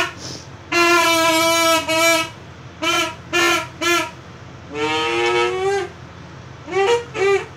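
A toy duck call blown in separate toots with a buzzy reed tone: one long held note about a second in, three quick short toots, a wavering rising note in the middle, then two more short toots near the end.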